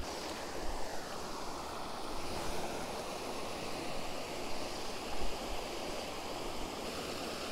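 Steady rush of water from a small waterfall spilling over a low weir into a creek pool.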